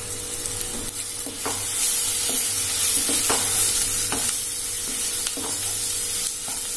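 Chopped onion, tomato and spices sizzling in oil in a nonstick kadai while a wooden spatula stirs them, scraping and tapping against the pan about once a second. The sizzle grows louder about a second and a half in as the stirring gets going.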